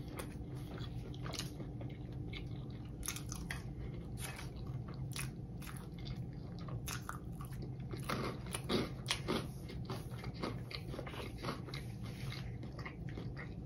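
A person chewing crunchy fried food coated in crushed hot Cheetos, most likely the fried king crab: irregular crisp crunches with a few louder chews a little past the middle.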